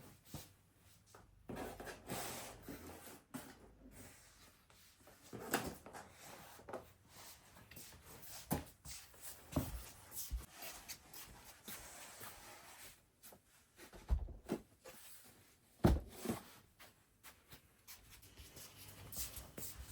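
Household items being handled and put away: scattered light knocks, clicks and rustling, with two heavier thuds about two-thirds of the way through.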